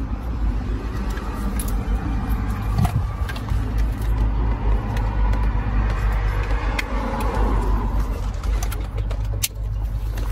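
Plastic wiring-harness connectors clicking and rustling as hands work them into a car's dashboard wiring, with scattered sharp clicks over a steady low hum from the car.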